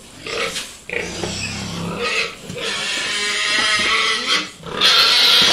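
Pigs squealing and grunting in their pens, excited as their feed is brought. A long squeal runs through the middle, and a louder one comes near the end.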